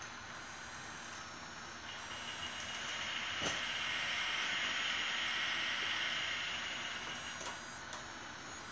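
A model vehicle on an HO layout running past, its small electric motor and wheels making a high whirring hiss that swells and then fades away, with a single click about three and a half seconds in.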